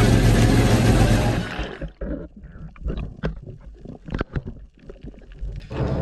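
A boat's engine runs with the rush of water and wind, then cuts off about two seconds in to underwater sound: faint gurgling of bubbles with scattered sharp clicks and crackles.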